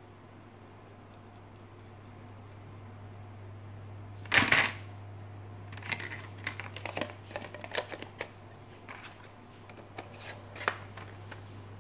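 Clear plastic blister packaging crackling and clicking as a small steel adjustable wrench is handled and fitted into it, with one loud clatter about four seconds in and scattered clicks after.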